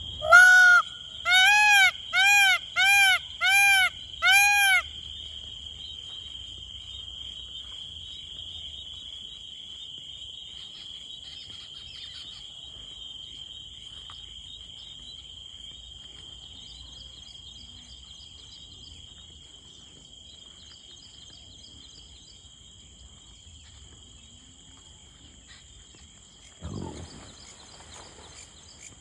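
Indian peafowl (peacock) calling six times in quick succession, each a loud, arching wail, over a steady high-pitched insect drone. A brief noise comes near the end.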